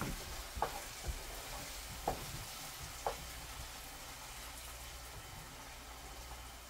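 Food sizzling and frying in a cooking pot, a steady hiss, with three light knocks in the first half from stirring.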